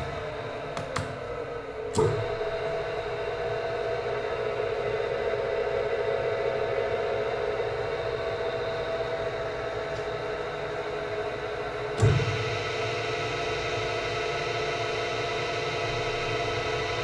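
ABS SM-80T spiral mixer, a three-phase electric dough mixer, running empty with a steady hum. It clunks once about two seconds in, and again about ten seconds later, after which it runs on with a slightly brighter tone.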